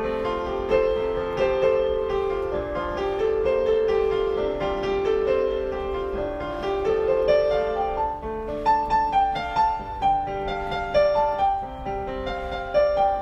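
Piano music: a melody over held lower notes, with more strongly struck notes in the second half.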